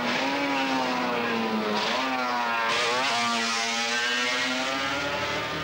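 Racing motorcycle engine running hard, its pitch falling and then rising sharply about two seconds in.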